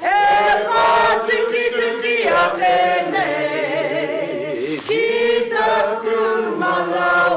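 A gathering of men and women singing a Māori waiata together in sung phrases with short breaks between them.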